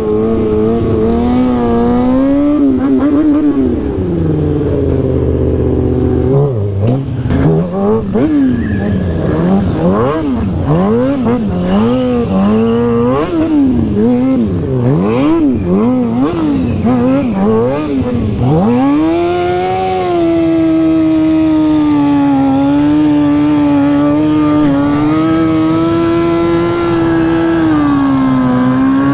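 Stunt motorcycle's engine revved up and down in quick swings, about once a second, as the throttle is worked. After a dip about two-thirds through, it holds a steady high rev to the end.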